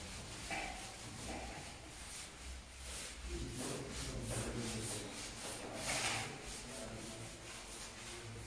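Dry-erase marker rubbing across a whiteboard in a string of short writing strokes, one louder stroke about six seconds in.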